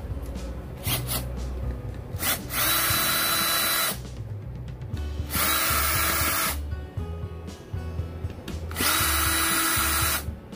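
Bosch cordless drill-driver run three times in bursts of about a second and a half, each with a steady motor whine, backing out the screws that hold the monitor's circuit boards. Background music with a steady beat underneath.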